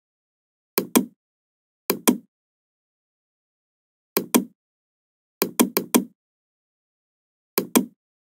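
Computer mouse clicking: short, sharp clicks in pairs, a press and a release each. There are five groups, and the fourth is a quick double click.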